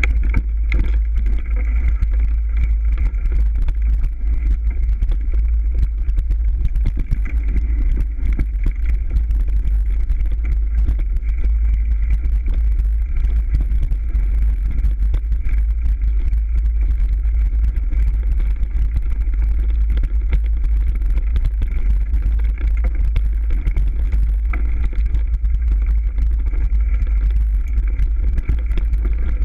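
Mountain bike riding over a dirt and leaf-covered forest trail, heard through a bike- or body-mounted action camera: a constant heavy rumble of wind and vibration on the microphone, with continual small rattles and knocks from the bike over the rough ground.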